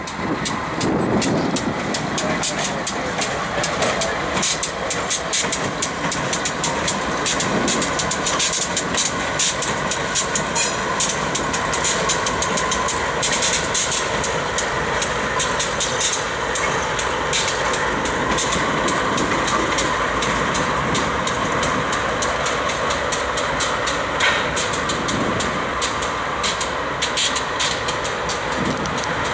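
BNSF and Norfolk Southern diesel-electric locomotives running as they move slowly past, a steady engine rumble with a dense high crackle of clicks throughout.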